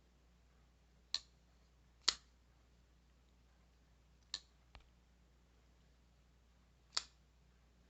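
Four sharp, separate clicks a second or more apart, with a faint soft knock after the third: a folding knife being handled, its blade and lock clicking as it is worked.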